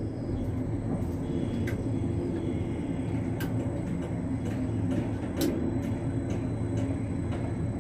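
Steady low engine rumble with a few faint sharp clicks.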